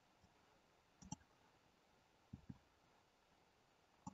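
Faint, short clicks from a computer mouse and keyboard, coming in a few quick pairs spaced a second or more apart.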